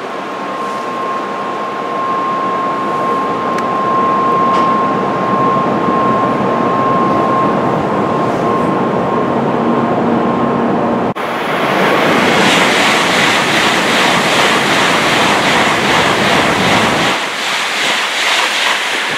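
N700-series Tokaido Shinkansen train running alongside the platform, a steady rumble with a thin steady electric whine. About 11 seconds in the sound cuts abruptly to another shinkansen passing through the station at speed: a loud rush of wind and wheels that fades about two seconds before the end.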